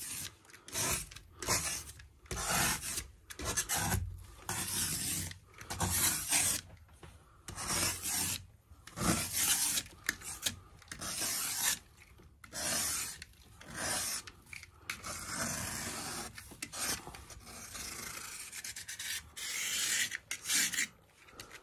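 A small paint scraper scraping frost off the inside of a windshield: repeated short rasping strokes, about one to two a second, with brief pauses between runs.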